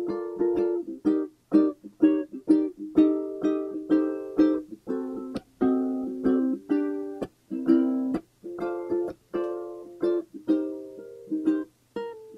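Background music: a plucked-string tune played as quick picked notes and chords, each struck sharply and fading, a few notes every second.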